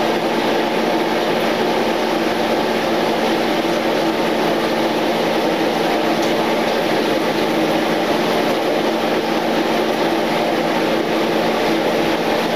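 Steady, unchanging whir of a stove's range hood exhaust fan, a constant motor hum under a smooth rush of air.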